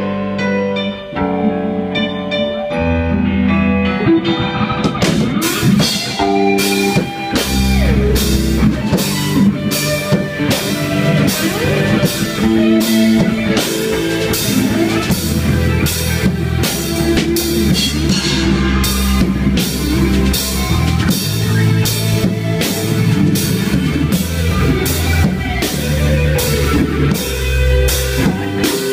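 A live rock band playing an instrumental passage, with bass guitar and keyboard; a drum kit comes in about five seconds in and keeps a steady beat.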